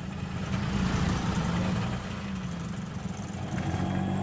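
Auto-rickshaw engine running steadily as it drives along a street.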